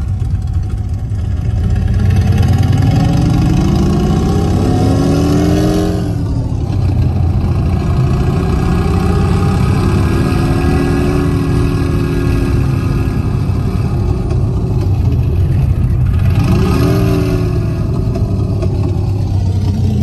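Harley-like motorcycle engine sound played through the car's speakers by a Bluetooth engine-sound gadget, following the revs of a Renault Clio 4 under hard acceleration, heard inside the cabin. The pitch climbs for about six seconds and drops at a gear change, then climbs again. Near the end comes another short rise and fall, over a steady low rumble of the real engine and the road.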